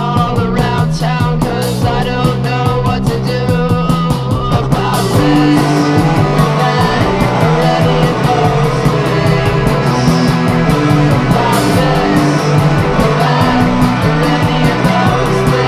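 Rock music with guitar and drums. A run of quick, evenly spaced drum hits gives way about five seconds in to a fuller, more sustained wall of sound.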